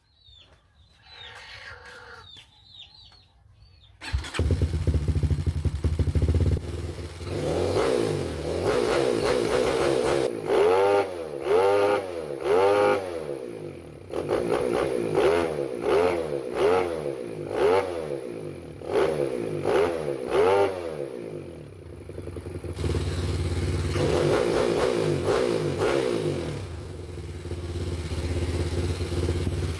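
Kawasaki KLX 150L single-cylinder engine, built with an XRM 125 four-valve head and a 70 mm forged piston, running. It starts loud about four seconds in, is blipped up and down about once a second for some fifteen seconds, and then runs steadily.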